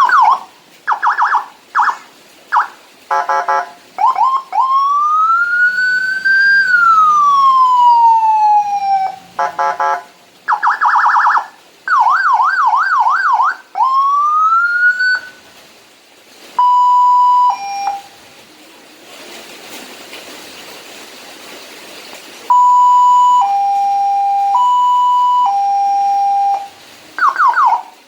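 Electronic emergency-vehicle siren, from a Landun siren module through a 300 W siren speaker, cycling through its tones with short breaks: quick chirps, then a slow wail rising and falling, a fast yelp, a short buzzing horn blast, and a two-tone hi-lo alternation near the end.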